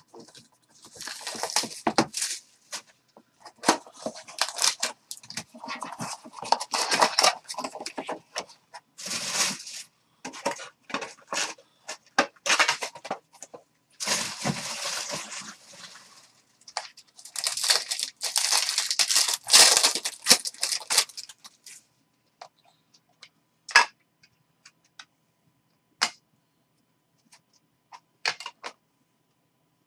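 Cardboard and foil trading-card wrappers tearing and crinkling as a 2019 Bowman Chrome box and its packs are ripped open, with rustling handling noise. Toward the end the ripping stops and a few short, sharp clicks follow.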